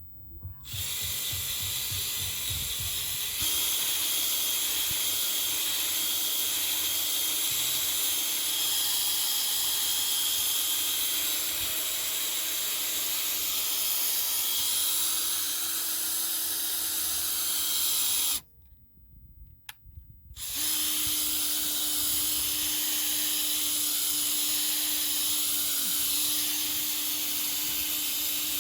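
Electric buffer running steadily with a constant hum and hiss as its pad compounds oxidized boat gelcoat with heavy-cut rubbing compound. It cuts off about two-thirds of the way through and starts up again about two seconds later.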